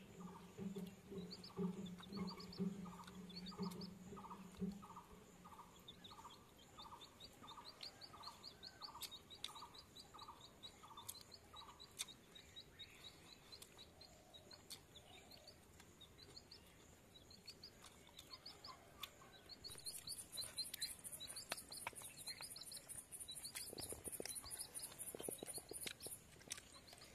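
Birds calling faintly, each in a series of short notes repeated at an even pace; a high, rapid trill comes in about two-thirds of the way through.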